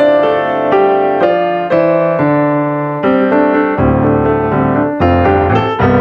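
Background piano music: notes struck one after another and left to ring, with deeper bass notes joining about four seconds in.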